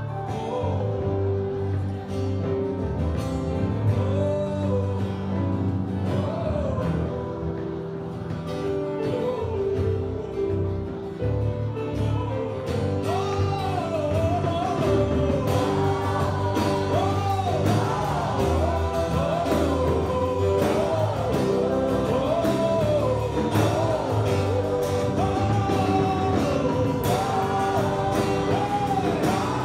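Live gospel music: a band plays a steady groove under a sung melody. About halfway through, the singing comes in more strongly and the drumming fills in.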